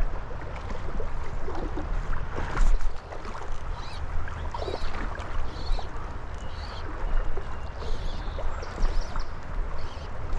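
River water running and splashing, with wind rumbling on the microphone and scattered short splashes and knocks.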